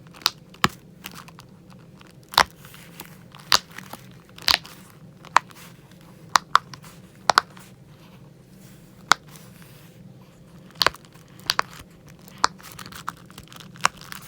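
Silicone pop-it fidget toy having its bubbles pressed through, making sharp pops at an irregular pace of about one a second, some in quick pairs.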